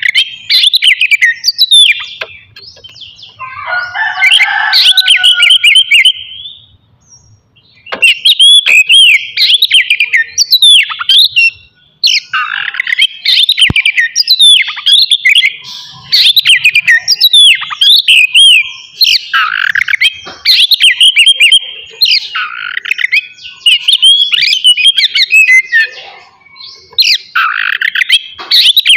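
Oriental magpie-robin (kacer) singing loud, rapid phrases of varied whistles and trills. A harsher, lower passage comes a few seconds in, and the song breaks off briefly twice.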